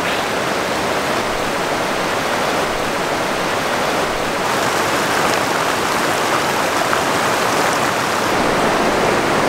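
Mountain river flowing: a steady rush of water with no let-up.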